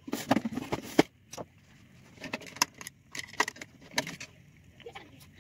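Handling noise: clusters of clicks, taps and light rattles as small hard objects are picked up, moved and set down. The busiest stretch is in the first second, with one sharp knock about a second in, then a few shorter bursts.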